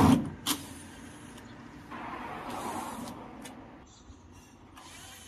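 Work on a washing machine's casing as its screws are taken out: a loud knock at the start, a sharp click about half a second later, then a stretch of scraping and rustling about two seconds in.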